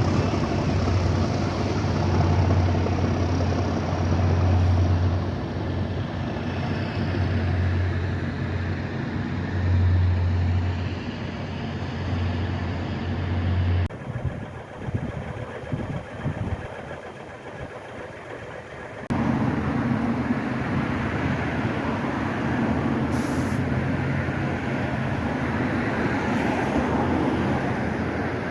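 Class 37 diesel locomotives' English Electric V12 engines running, a deep pulsing hum that swells and eases. About halfway it drops away abruptly to a quieter sound for a few seconds, then the engine sound returns just as suddenly.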